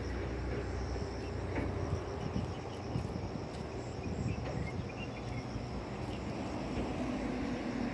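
Outdoor coastal dawn ambience: a steady low rumble under a continuous high-pitched insect trill, with a few faint chirps about midway.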